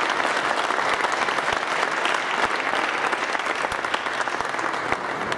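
Audience applauding after a won rack of pool, a dense steady clapping that eases slightly near the end.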